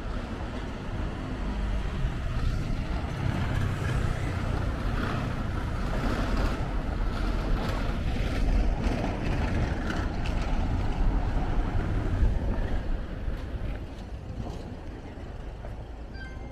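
City street ambience: a low rumble of motor traffic that swells over the first dozen seconds and fades after about thirteen seconds.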